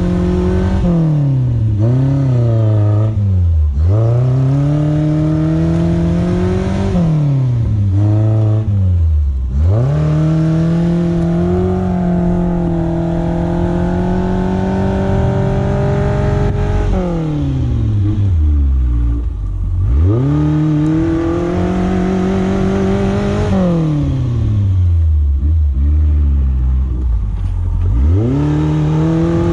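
Suzuki SJ410's engine revving up and falling back again and again, its pitch climbing, holding, then dropping steeply several times as the throttle is worked.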